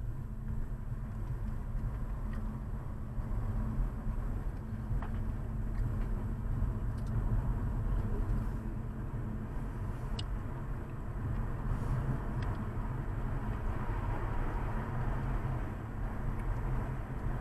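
Steady road and engine rumble of a moving car, with a few faint ticks over it.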